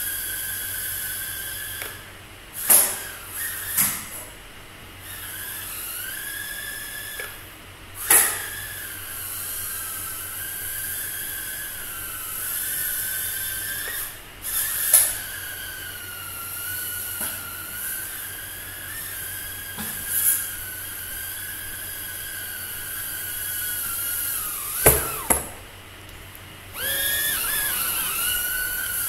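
A tiny micro FPV drone flying: its small motors and propellers give a high buzzing whine that rises and falls in pitch with the throttle. The whine cuts out briefly several times, and there are several sharp knocks.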